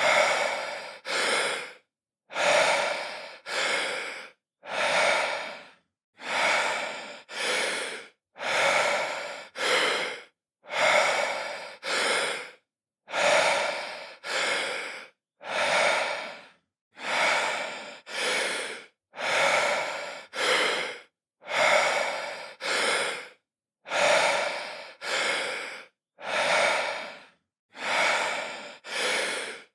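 A man breathing deeply in and out, each inhale followed closely by an exhale, about one breath every two seconds with a short silence between breaths.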